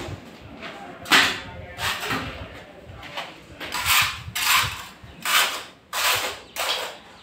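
Notched steel trowel scraping wet tile adhesive on a wall, in about seven short strokes at irregular intervals.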